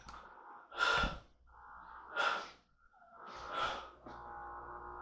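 Heavy breathing close to the microphone: three breaths about a second and a half apart, over a steady hum.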